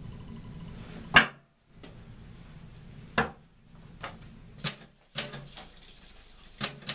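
Several sharp knocks and clinks on a table, the loudest about a second in, as a cloth pouch of bottle caps is set down and handled.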